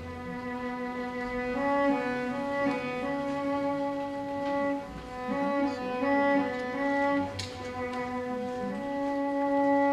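Symphony orchestra playing a slow passage led by bowed strings, a melody moving from note to note over held notes.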